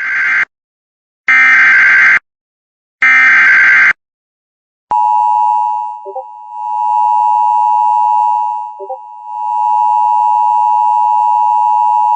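Emergency Alert System broadcast: three short, raspy digital header bursts about a second apart, then the steady two-tone EAS attention signal starting about five seconds in. The attention tone dips briefly twice.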